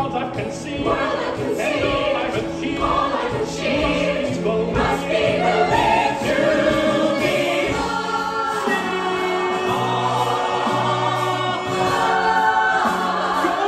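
Musical-theatre ensemble singing in chorus over band accompaniment with a steady bass line.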